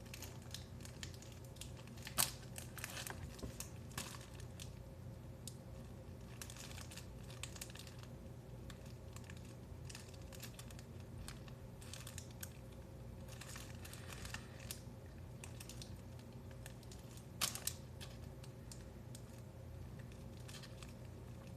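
Scattered soft crinkling and small clicks of a plastic snack-cake wrapper being handled while an oatmeal cream pie is eaten, with a couple of sharper crackles, over a low steady hum.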